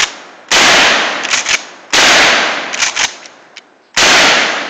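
Three shots from a 12-gauge Mossberg 500A pump-action shotgun, about half a second, two seconds and four seconds in. Each blast fades over about a second. Short clacks between the shots are the pump being worked.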